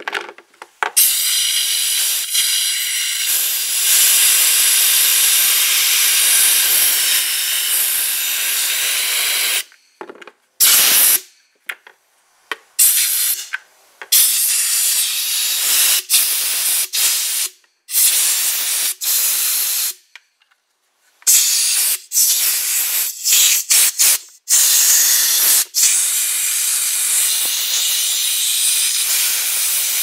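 Compressed air from an air gun with a long brass nozzle hissing through a dishwasher spray arm, blowing paper labels and gunk out of its clogged ports. It goes in one long blast of about nine seconds, then a string of short bursts, then longer blasts with brief breaks near the end.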